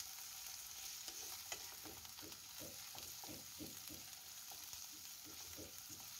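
Potato cubes and sliced onions sizzling in hot oil in a non-stick frying pan, stirred with a spatula in quick repeated strokes, about three a second.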